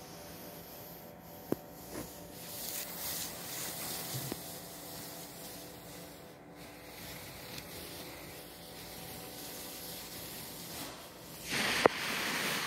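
Kittens scuffling around and under a corrugated cardboard cat scratcher: soft rubbing and scratching with a few light knocks. Near the end comes a louder rush of rubbing with a sharp knock.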